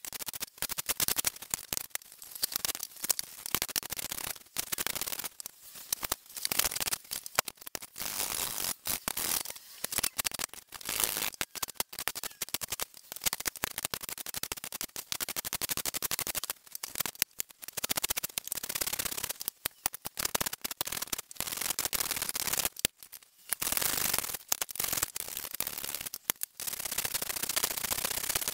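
Metal bench plane shaving rough pallet-wood boards by hand: quick repeated strokes, each a scraping hiss of the blade cutting, in runs broken by a few short pauses.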